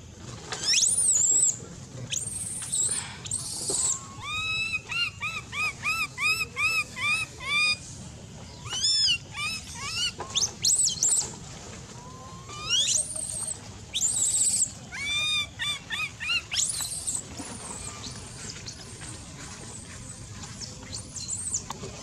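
Baby long-tailed macaque crying: short high cries that rise and fall, in a run of about two a second, with longer, louder cries between the runs. The crying is begging for food from hunger.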